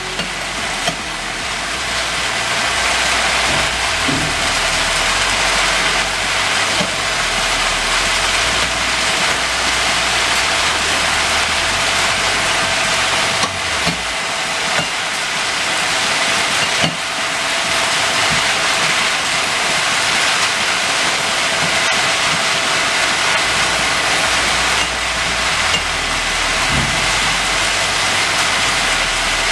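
Motor-driven fan blower running steadily, blowing walnut kernels from the hopper up a pipe into the crusher; an even hiss with a steady whine over it.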